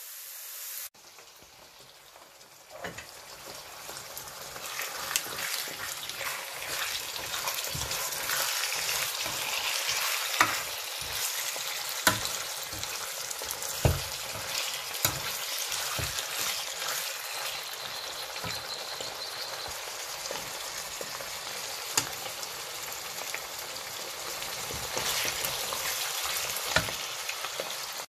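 Diced onion and pieces of liver sizzling in hot oil in a non-stick pan, getting louder a few seconds in. A spatula stirring them gives occasional sharp knocks against the pan.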